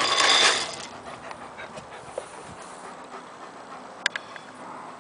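Dry dog kibble rattling out of a plastic bag into a bowl for about the first second, then an Alaskan malamute panting, with a few faint clicks.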